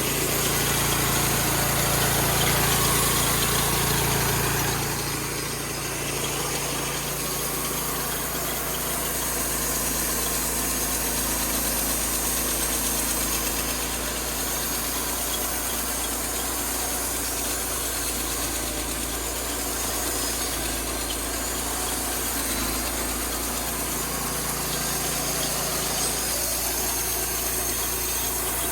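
Engine of a homemade sawmill running steadily while it cuts through a large log, its sound easing slightly about five seconds in.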